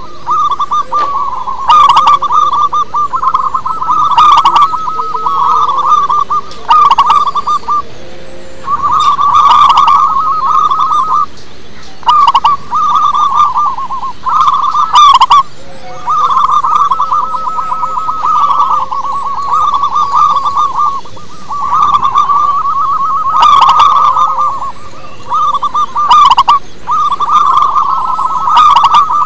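Zebra dove singing its rapid staccato cooing song close to the microphone, in repeated phrases of one to three seconds with short breaks between them.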